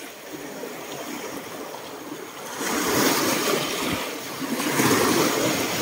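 Small sea waves washing in over a pebble shoreline. The wash grows louder about halfway through and swells again near the end.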